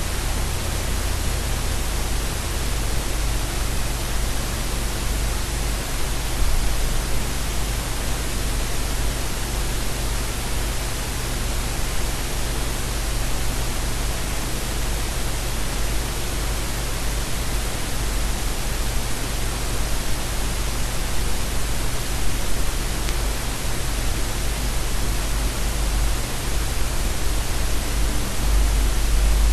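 Steady, even hiss of static-like noise with a low rumble beneath it; the rumble grows louder at the very end.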